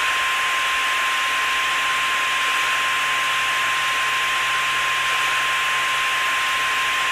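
Loud TV static hiss with a steady single test tone near 1 kHz held through it: a broadcast-interruption signal cutting into the programme ahead of an emergency alert.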